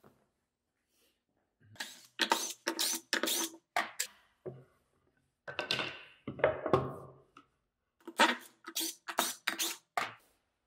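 Plywood tenon jig rattling and knocking against the table saw fence it straddles as it is rocked and slid by hand, in quick runs of knocks with a scraping stretch in the middle. The play shows a loose, imprecise fit on the fence.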